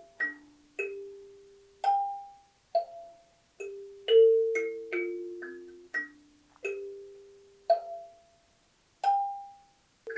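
Slow, gentle melody of single struck mallet-percussion notes, each ringing briefly and fading, sometimes two notes together.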